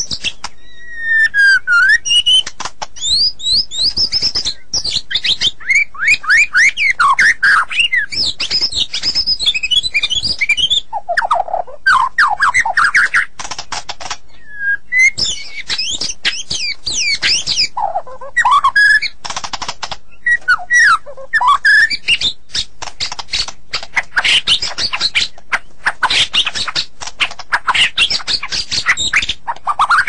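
White-rumped shama (murai batu) singing continuously and loudly: a varied song of fast rising and falling whistles, trills and sharp clicks, delivered in phrases with brief pauses between them.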